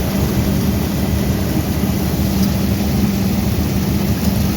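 Vintage Caterpillar crawler tractor's engine running steadily, heard up close, with a strong low drone.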